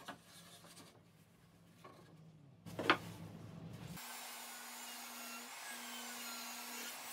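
Wooden parts handled and rubbed together, with one sharp wooden knock about three seconds in. From about four seconds a table saw and its dust extraction run steadily: an even hiss over a low hum.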